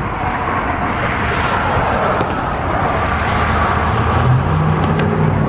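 Steady street noise of road traffic, with a low engine drone coming up about four seconds in.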